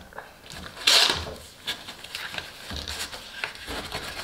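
Cardstock rustling and scraping as hands press and rub a panel down into the bottom of a paper box: one loud crinkle of card about a second in, then softer irregular rustles and light taps.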